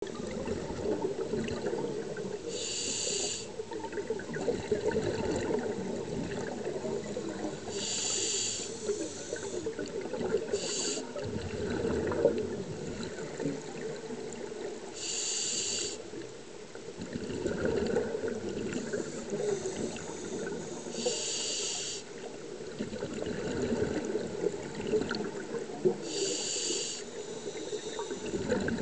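Scuba regulator breathing underwater: a short hissing inhalation about every five seconds, six in all, with a rumble of exhaled bubbles between them.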